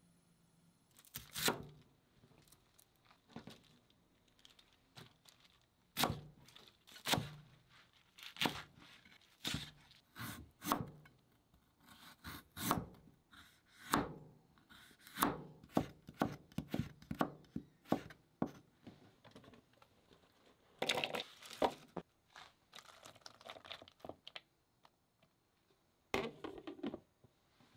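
Kitchen knife cutting carrot and komatsuna on a cutting board: sharp single chops about one a second. About three-quarters of the way through there is a denser stretch of scraping and rustling as the cut vegetables are swept off the board into a bowl.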